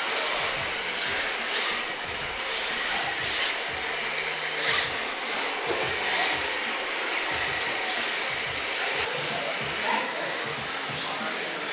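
RC drift cars running on the track: a steady whine and hiss of small electric motors and sliding tyres, with brief louder swishes every second or two.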